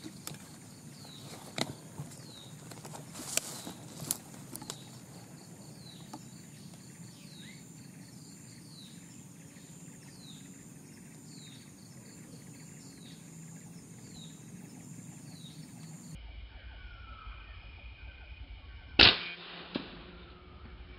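A single sharp rifle shot about three-quarters of the way through, the loudest sound, followed by a lighter knock under a second later. Before it, a bird repeats a short falling chirp about once a second, with a few faint clicks.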